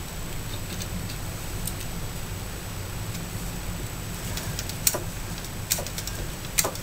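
A few light clicks over a steady low hum as a lathe chuck turns a brass cap onto a steel bolt held in a wrench, threading the cap on. Most of the clicks come in the second half.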